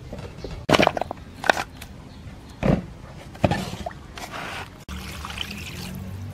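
Water splashing and pouring into a metal bowl of raw chicken wings. A few short loud splashes come in the first three and a half seconds, then a steadier trickle and slosh.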